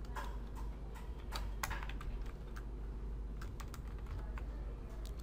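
Computer keyboard typing: irregular, faint keystrokes over a steady low hum.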